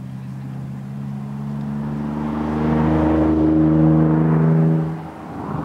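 An engine running at a steady pitch, growing louder over about four seconds, then dropping away sharply about five seconds in.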